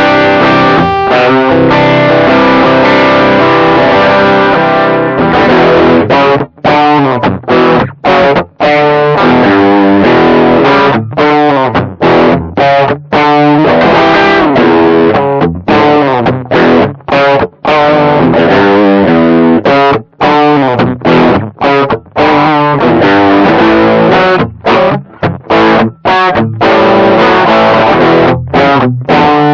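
Electric guitar played through a Caline Orange Burst overdrive pedal, a BB Preamp clone, in a dirty, overdriven tone. A chord rings out for about five seconds, then gives way to rhythmic chord riffing with many short, sharp stops.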